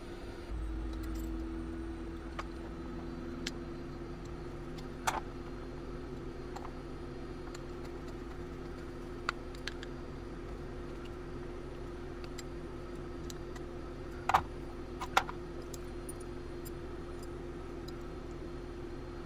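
Small metal clicks and taps as the parts of an antique boot pistol's lock are handled and fitted back into its frame, a few scattered clicks with two louder ones near the end. A steady low hum runs underneath.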